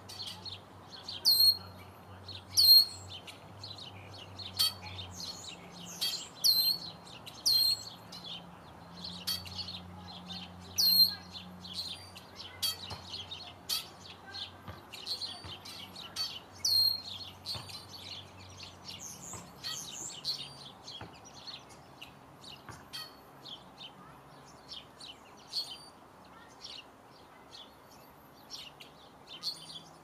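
Songbirds chirping and calling: many short, sharp high calls, some a repeated note that drops quickly and then holds. A faint low hum lies underneath and fades out about two-thirds of the way through.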